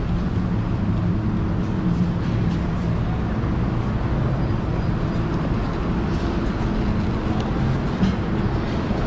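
Steady low hum of a busy indoor market hall, with a general hubbub of background noise and a brief knock about eight seconds in.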